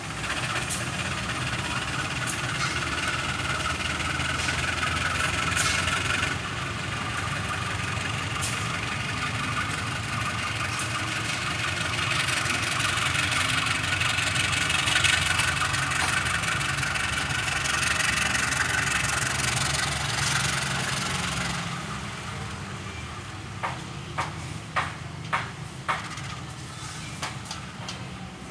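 A train running past close by: a steady, dense rush of wheels on rail and running gear that eases off about 22 seconds in. A few sharp clicks follow near the end.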